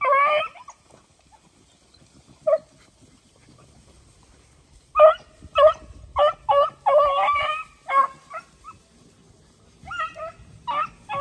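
A pack of beagles giving short, high cries: one at the start, a single call about two and a half seconds in, a quick run of calls from about five to eight seconds in, and a few more near the end.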